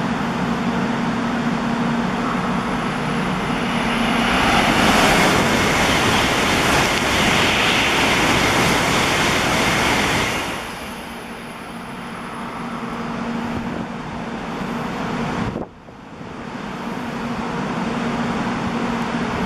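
A Shinkansen bullet train running through the station at speed without stopping: a rushing swell of air and wheel noise that builds, holds loud for several seconds, and drops away sharply. Underneath is a low steady hum from the train standing at the platform, with a brief break in the sound a few seconds before the end.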